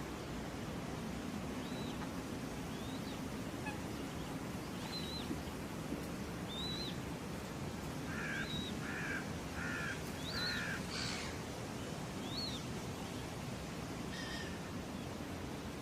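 Birds calling: a short high chirp repeated every second or two, and, about eight seconds in, a run of four harsh calls about half a second apart.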